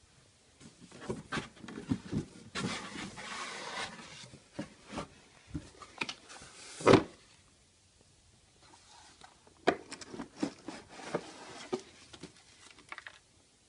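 A box and its packaging being opened and handled: scattered knocks, rubbing and scraping, a longer sliding rustle a few seconds in, and one sharp thump, the loudest sound, about halfway through.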